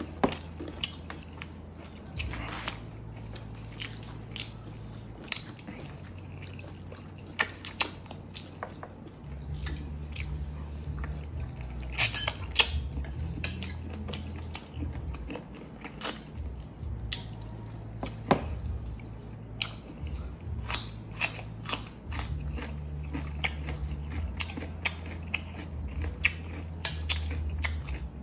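Close-up chewing of braised chicken drumstick adobo, eaten by hand, with many short wet mouth clicks and smacks scattered irregularly throughout.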